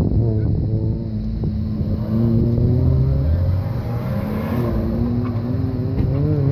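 Car engine accelerating hard from a standing start, revs climbing as it pulls away, then rising and falling as the car runs through an autocross cone course.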